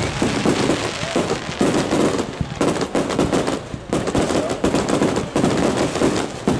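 Aerial fireworks shells going off in rapid succession, one bang after another with crackling in between, so densely that the reports overlap with no pause.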